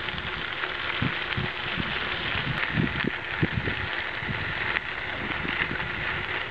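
Mountain bike tyres rolling over a crushed-gravel trail: a steady gritty hiss, with irregular low thumps throughout.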